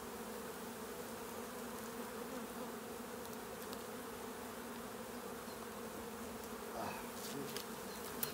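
Honeybees from an opened hive humming steadily, a constant drone from the mass of bees on the frames, with a single light knock near the end.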